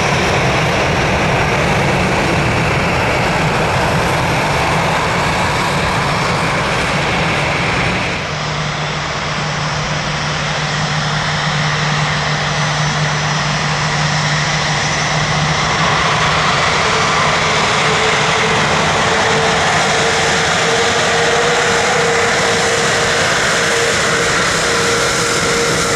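Boeing 787-9 Dreamliner jet engines running with a loud, steady roar. There is an abrupt change about 8 seconds in, and a steady whine rises slightly in pitch from about halfway through.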